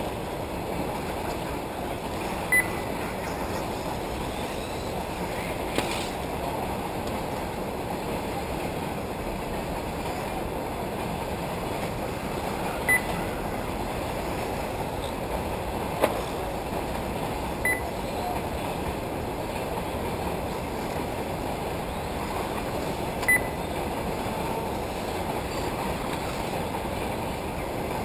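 Short high beeps from a race lap-timing system, four times at uneven intervals several seconds apart, marking transponder-equipped cars crossing the timing line. Under them runs a steady wash of noise from 1/8-scale electric off-road RC buggies racing on the dirt track.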